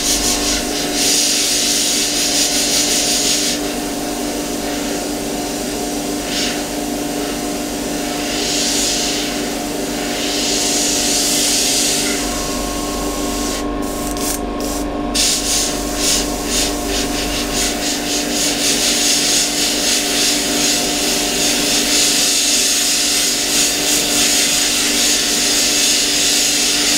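Iwata Custom Micron airbrush spraying paint, a hiss that starts and stops in several passes and sputters on and off briefly about halfway through, over the steady hum of an air compressor.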